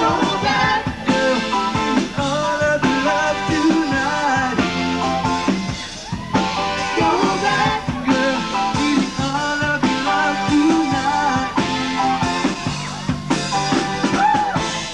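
Live rock band playing, with guitar, and a male lead singer singing into a handheld microphone; the music dips briefly about six seconds in.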